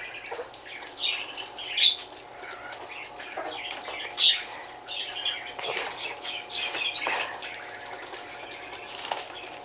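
Shetland Sheepdog puppies wrestling and playing: a busy patter of claws scrabbling on a hard floor and plastic balls knocking, broken by several short, high puppy squeaks or yips.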